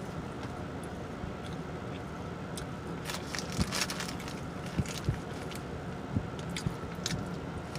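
Close-up mouth sounds of someone chewing food with wet smacking clicks, busiest a few seconds in, over the steady hum of a car cabin.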